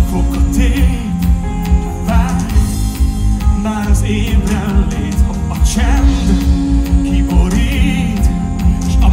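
Live pop-rock band playing under a male lead vocal: drums, electric guitars, bass, keyboard and strings. Heard from the audience, with a heavy low end.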